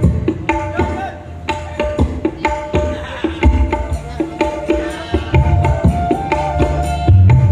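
Dangdut gendang drums played in a fast rhythm, mixing deep booming bass strokes that bend in pitch with ringing higher strokes and sharp slaps.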